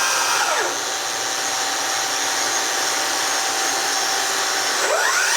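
Kitamura Mycenter 4 CNC vertical machining center running with a steady electric whine; its pitch falls within the first second, holds steady, then rises again near the end.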